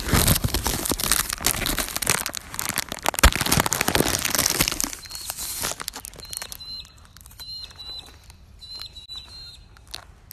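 A KitKat wrapper crinkling and tearing as the bar is unwrapped. The crackle is loud for about the first five seconds, then dies down to faint rustles with a few faint high chirps.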